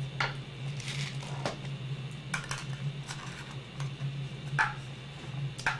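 A small jar being handled, with scattered light clicks and clinks at irregular intervals, over a steady low hum.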